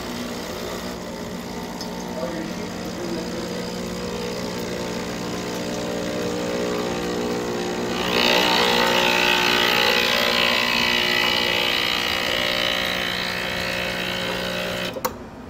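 Breville Infuser espresso machine's vibratory pump buzzing steadily while it pushes water through the group head into a stainless steel jug, running a double-shot flush to prime and rinse the circuit on first startup. The splashing of the water grows louder about eight seconds in, and the pump cuts off suddenly near the end.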